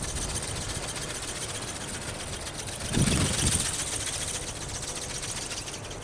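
Brushless electric motor and gear train of a small flapping-wing ornithopter buzzing steadily in flight, with wind buffeting the microphone in a gust about halfway through.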